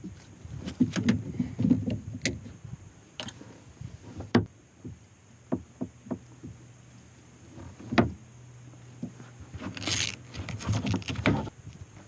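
Handling noise on a fishing kayak while a trout is played: scattered knocks and clicks, two of them sharp, about four seconds and eight seconds in, with short bursts of low rumbling noise near the start and near the end.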